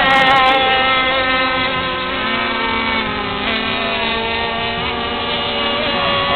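Several radio-controlled mono-hull racing powerboats running flat out together. Their small high-revving engines make a steady high-pitched whine of several overlapping tones that drift slightly in pitch as the boats pass.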